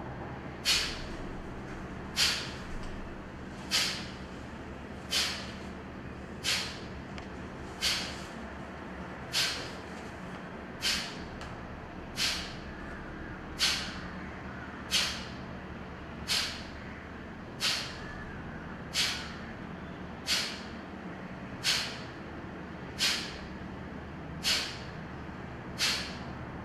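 Kapalbhati breathing: a steady rhythm of short, forceful exhalations through both nostrils, each a sharp hiss of nasal friction, about one every one and a half seconds, nineteen in all. The inhalations between them are passive and silent.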